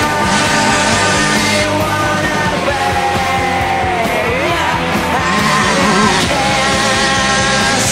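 Rock music with a singer, loud and steady throughout.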